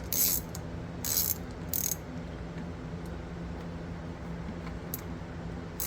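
Ratchet wrench with a 13/16 socket clicking in three short bursts in the first two seconds, fainter later, while loosening a generator's spark plug. A steady low hum runs underneath.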